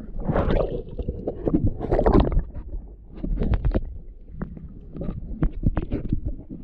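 Small choppy wind waves splashing and sloshing, with a low rumble of wind buffeting the microphone. There are two louder splashing surges early on, then a run of sharp clicks and knocks in the second half.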